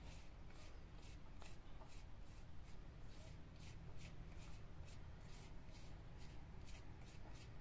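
Faint rhythmic scraping strokes, about two to three a second, over a low steady rumble.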